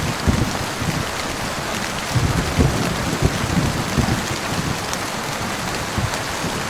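Steady heavy rain falling on a surface, an even hiss with irregular low thuds every second or so.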